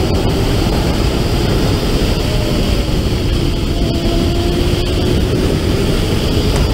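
Sport motorcycle engine running at steady road speed, its pitch drifting gently up and down, half buried under heavy wind rush on the onboard camera microphone.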